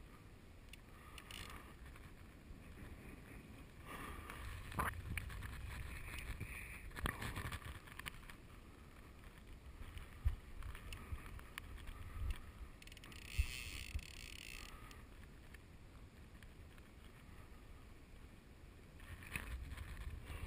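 Wind rumbling on the microphone over the sound of river water moving around a wading angler, with a few soft knocks and a short stretch of hiss in the middle.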